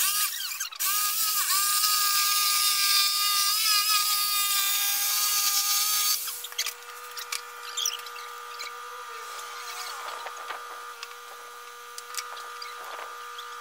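A Bosch electric jigsaw cutting through a pine board, its blade buzzing steadily with a brief dip in the first second. It stops about six seconds in, leaving a faint steady hum.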